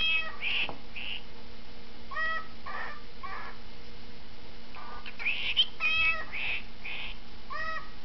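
A male cockatiel calling in several short groups of high, pitched, mimicked calls, with pauses in between.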